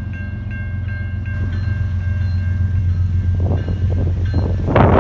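Approaching freight train's lead diesel locomotive rumbling louder and louder as it nears, while a grade-crossing bell rings in quick repeated strokes. Rough rushing noise builds near the end as the train draws close.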